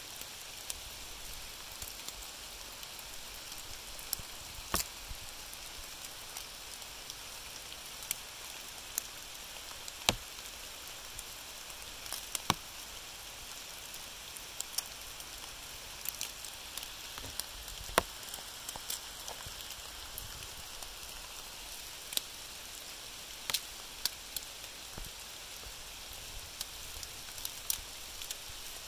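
Steady rain hiss with irregular sharp ticks of single drops landing, a few of them much louder than the rest.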